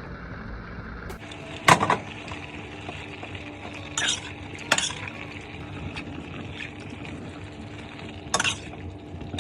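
Seafood sizzling in a pan while a utensil stirs it, clinking sharply against the pan four times.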